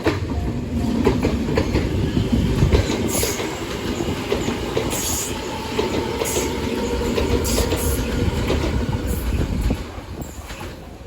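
A train passing over a level crossing, its wheels clattering over the rail joints amid the steady noise of the passing cars. The sound drops away near the end.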